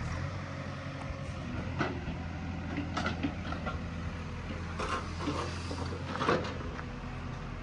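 Diesel engine of an earthmoving machine running steadily, with several sharp metallic clanks from the machine working, the loudest near the end.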